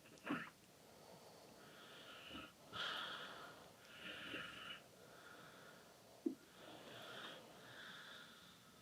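Hands rubbing and gliding over skin during a back massage: faint, repeated swishing strokes about once a second, with a couple of short clicks.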